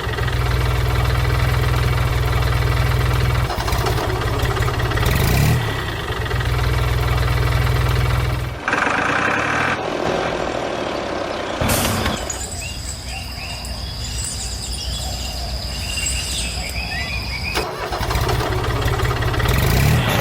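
An engine running steadily with a low hum for the first eight seconds or so, briefly breaking off twice. It cuts off abruptly, and thinner, noisier sounds with a steady high whine follow.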